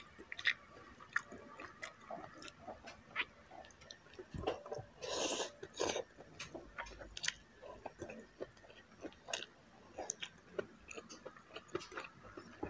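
Close-miked chewing and lip smacking of a person eating braised pork humba: many short, wet mouth clicks, with a louder noisy stretch about five seconds in.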